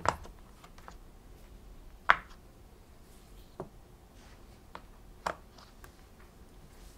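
Silicone push-pop fidget toy, its bubbles pressed through one at a time: a handful of soft single pops spaced a second or so apart, the sharpest about two seconds in.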